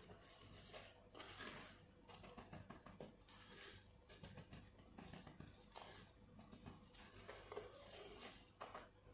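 Faint, irregular rustling and crunching of dry breadcrumbs as fingers press and pat a chicken breast cutlet into them in a bowl, in short scrapes one after another.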